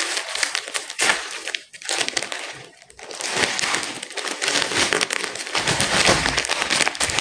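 Plastic packaging crinkling and rustling as hands pull open and lift a plastic courier bag, with two short lulls in the first three seconds and a low rumble of handling joining in near the end.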